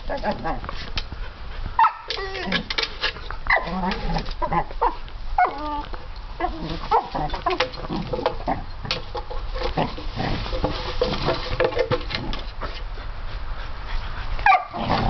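Eight-month-old border collie puppy giving repeated short, high puppy barks as it plays at a plastic cat statue, with a loud bark near the end.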